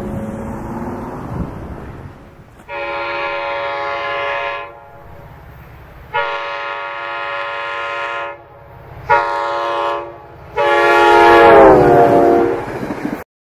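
Air horn of NJ Transit locomotive 4203, an EMD GP40PH-2B diesel, sounding the grade-crossing signal: two long blasts, one short, then a final long blast that drops in pitch near its end. The train's low rumble runs under the horn.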